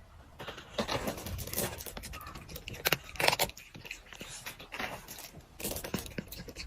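Quiet, irregular clicking, rustling and scraping with no steady tone.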